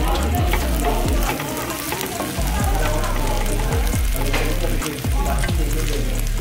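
Kimchi fried rice sizzling in a hot griddle pan, with the burner just switched off, while a wooden spatula and a metal spoon stir it and scrape repeatedly against the pan. Background music plays underneath.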